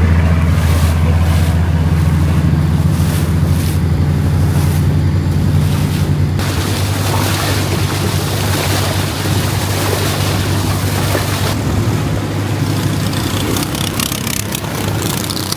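Small tour boat's engine running steadily under way, with water and wind rushing past. About six seconds in, the rushing hiss grows louder over the engine hum.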